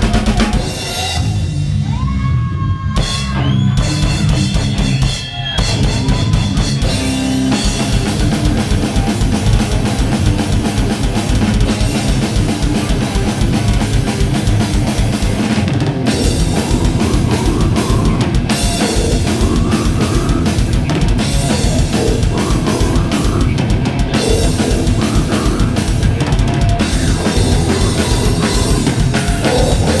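A death metal band playing live on drum kit and distorted electric guitars. In the first seconds it thins out to sliding high notes over the drums. From about eight seconds in, the full band plays with a fast, pounding bass drum and cymbals.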